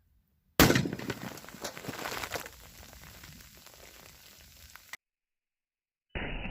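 A single M1 Garand rifle shot of .30-06 full metal jacket, about half a second in, followed by a couple of seconds of crackling and fizzing as the hit soda cans burst and spray. The sound cuts off suddenly; a duller, muffled sound starts near the end.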